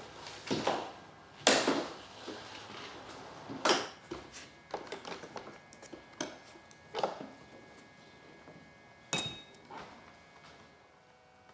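A series of irregular knocks and clatters of hard objects being handled. The loudest comes about a second and a half in and another near four seconds in, with fainter ones later.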